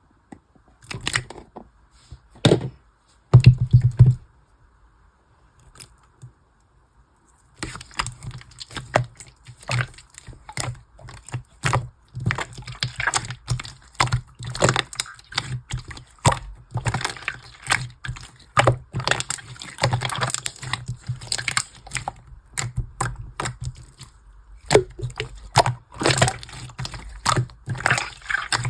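Clear slime being pressed, squished and folded by hand, making wet squelches and dense crackling clicks. A few sharp clicks and a louder knock come in the first seconds, then after a short pause the squishing and crackling run on steadily from about eight seconds in.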